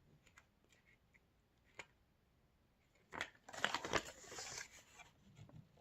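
Paper or thin cardboard being handled: a few faint clicks, then a rustling, crinkling stretch about three seconds in that fades toward the end.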